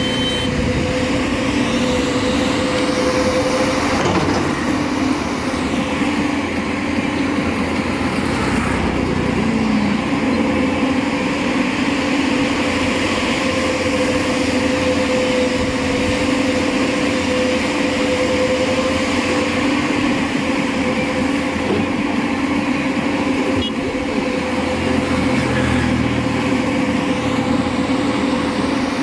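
JCB 3DX backhoe loader's diesel engine running steadily under working load. High rising and falling whines come in near the start and again near the end.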